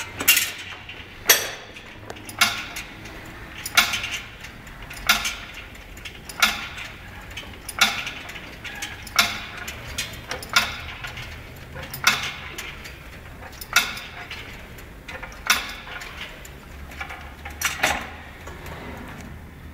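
Metal clanking from a cable machine during one-arm cable biceps curls, once per rep, about every second and a half: the weight-stack plates knocking together as the weight is lowered. Some clanks come as a quick double knock.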